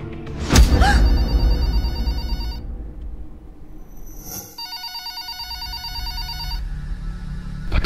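Corded hotel desk telephone ringing with an electronic ring: two rings of about a second and a half to two seconds each, with a pause of about two seconds between them. A low thump comes just before the first ring.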